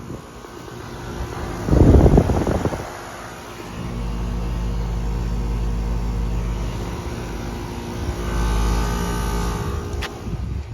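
Outdoor air-conditioner condensing unit running, a steady low compressor hum with fan noise that swells louder for a second or so near the end. It is preceded by a brief loud rush of noise about two seconds in.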